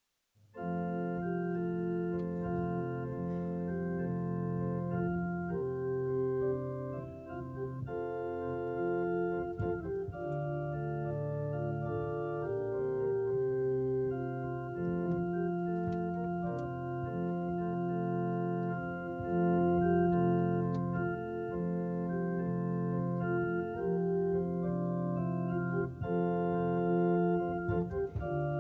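Organ playing slow, sustained chords that change every second or two, starting from silence about half a second in.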